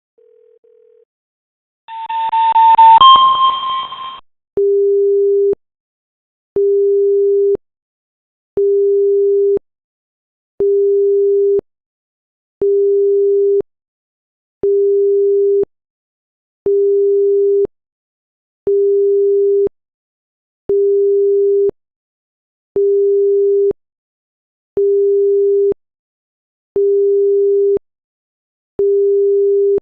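Electronic seismograph alarm: a two-note chime, then a steady low beep about a second long repeating every two seconds. It is the monitoring station's acoustic warning that a seismic signal is coming in.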